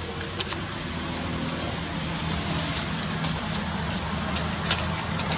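A steady low engine hum, slowly getting a little louder, with a few sharp clicks over it.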